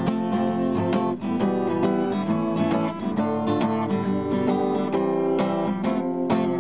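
Background music: acoustic guitar strumming chords in an instrumental passage of a Bicolano song.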